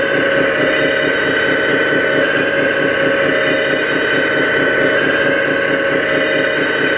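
Radio-controlled Hitachi Zaxis 330 model hydraulic excavator running steadily as it dumps a bucket of dirt: a constant whine from the hydraulic pump over a fast, even engine-like pulsing drone.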